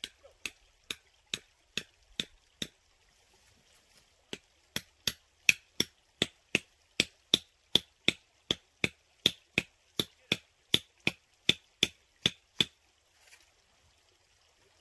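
Repeated sharp blows of a hand tool, evenly paced at about two and a half a second: seven, a short pause, then more than twenty in a row.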